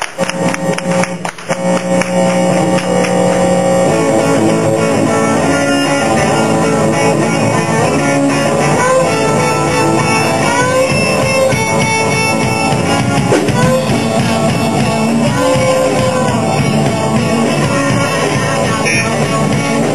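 Rock music with guitar and drums, holding a steady level after a couple of brief dips in the first two seconds.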